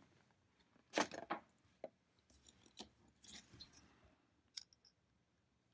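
Faint, scattered clicks and light metallic clinks of small parts and hand tools being handled on a workbench, with one brief ringing clink near the end.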